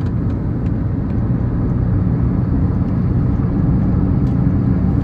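Loud, steady low rumble with no clear pitch or rhythm.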